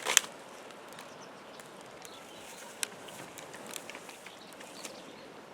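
A sharp knock just at the start, then scattered light clicks and taps over a low steady outdoor hiss.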